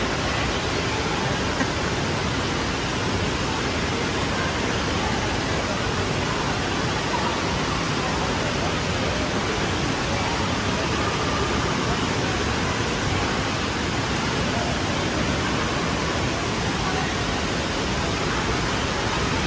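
Steady rushing noise of an indoor water park pool hall: running and lapping water filling the hall, with faint voices under it.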